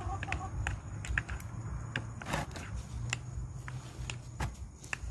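Chopsticks clicking and scraping against bowls of noodle soup while eating: a dozen or so irregular light clicks, with one longer, noisier sound about two seconds in.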